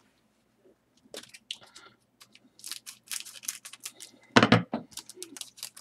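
A hockey card pack's wrapper being torn open and crinkled by hand: a run of short crackles and rustles, with one louder burst about four and a half seconds in.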